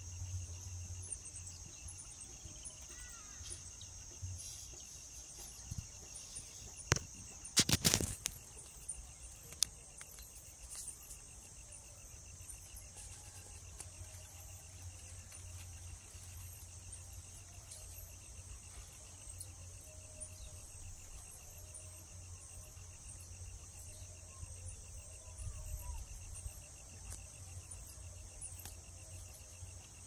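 Insects calling steadily from the garden: a continuous high-pitched buzz with a fast, even cricket-like trill beneath it. A few sharp clicks or knocks stand out about seven to eight seconds in, over a low rumble.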